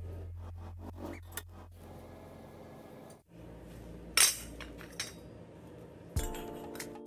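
Faint background music with a few scattered clinks, the loudest a single sharp clink about four seconds in.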